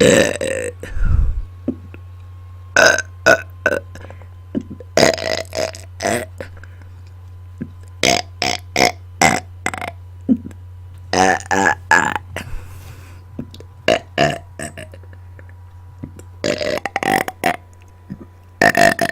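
A person belching on command: a long run of burps, some single drawn-out belches and some quick strings of short ones, with pauses of a second or two between them. A steady low hum runs underneath.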